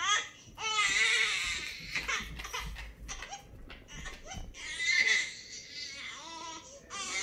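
A baby laughing and crying in wavering, high-pitched bouts, three times.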